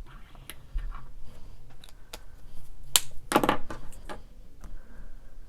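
Scattered small clicks and taps from a plastic model kit part and a panel-line marker being handled. A sharper click comes about three seconds in, followed by a brief rustle. A faint low hum runs underneath.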